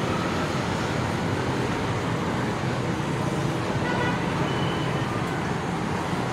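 Steady background hum of road traffic, with a few faint short high tones about four to five seconds in.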